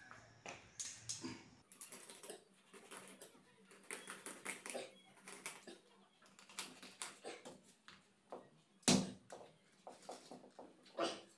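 Large knife cutting through a whole pomfret on a wooden chopping block: an irregular run of light taps and scrapes, with a louder knock of the blade on the block about nine seconds in and another near the end.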